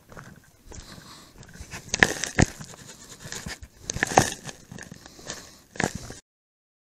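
Footsteps on a gravel drive with rustling of a body-worn camera as its wearer walks, broken by several sharp knocks. The sound cuts off suddenly near the end.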